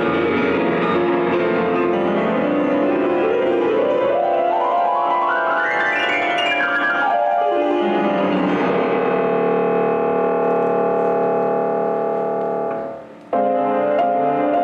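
Grand piano with the orchestra: a fast run climbing up the keyboard and sweeping back down, then a long held chord that fades away. A new chord comes in suddenly near the end.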